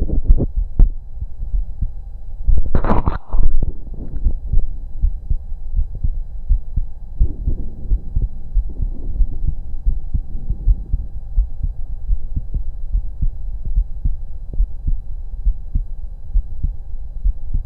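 A human heartbeat heard through a stethoscope on the chest during a breath hold: a steady run of low thumps, with one brief, louder noise about three seconds in.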